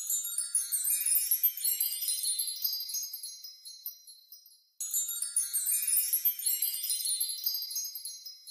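A magic sparkle sound effect of high tinkling chimes: a shimmering cascade of small ringing notes that sweeps up in pitch and fades away over about four seconds. It plays twice in a row with a short gap between.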